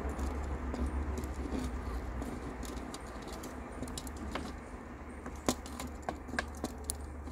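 Small scratchy clicks and ticks of fingers twisting two bared copper wire ends together, growing busier and sharper in the second half, over a steady low rumble.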